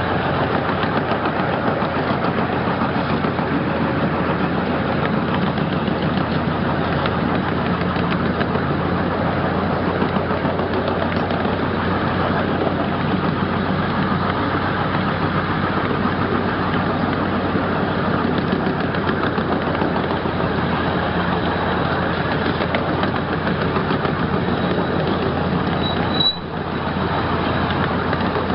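A 12-inch gauge ride-on train running along its track: steady rolling and running noise of the locomotive and cars, heard from a passenger car. A short high squeak comes near the end.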